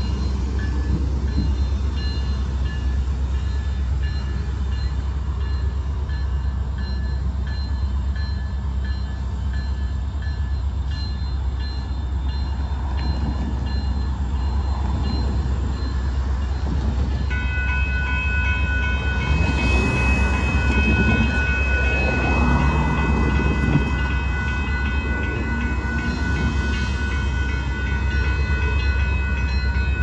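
Railroad grade-crossing warning bell starts ringing suddenly a little over halfway through, as the crossing signals activate for an approaching freight train. A steady low rumble underlies it.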